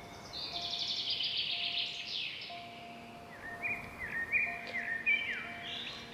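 Birds calling outdoors: a buzzy trill for the first two seconds or so, then a run of short chirps that step up and down in pitch.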